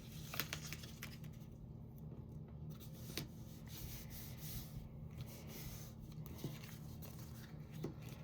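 Cardstock being handled and repositioned on a craft table: soft rubbing and sliding of paper, with a few light clicks and taps.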